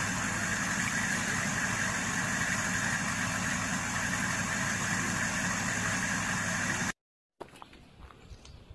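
Steady engine, tyre and wind noise of a vehicle driving at highway speed, heard from aboard it. It cuts off suddenly about seven seconds in, leaving a much quieter background with a few faint clicks.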